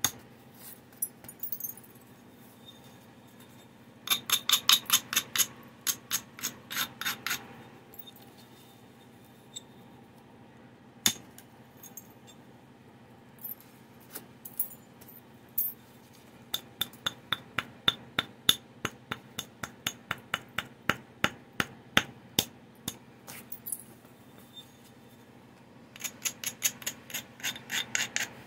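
Flintknapping: a round abrading stone scraped back and forth along the edge of a stone biface (a Clovis point preform) in quick runs of sharp scratchy clicks, roughening the edge before the next strike. There are a few single louder clicks of stone on stone, one about 11 seconds in.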